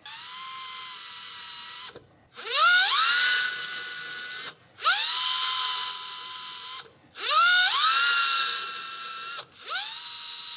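Power drill with a chamfering bit, run in five short bursts of about two seconds each as it chamfers holes in a 17-4PH stainless steel collar. Each burst is a whine that rises in pitch, then holds steady and stops.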